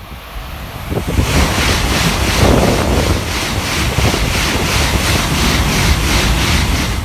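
Tokaido Shinkansen high-speed train passing close by at speed: a loud rush of wind and running noise that swells about a second in. Through it runs an even beat about three to four times a second as the cars go by, and it falls away near the end.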